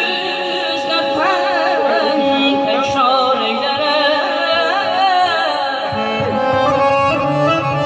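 Folk music: accordion notes held steady under an ornamented, wavering singing voice. The voice drops out about six seconds in, leaving the accordion playing a stepped melody.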